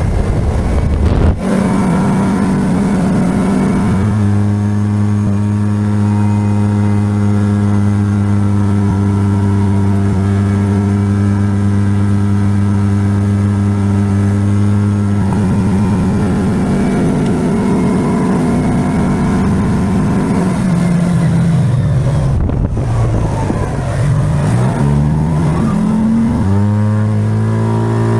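Vehicle engine running at a steady cruising speed while driving, with a steady pitched drone. About 22 s in the pitch drops as it slows, then rises again as it speeds back up. There is a brief knock just after the start.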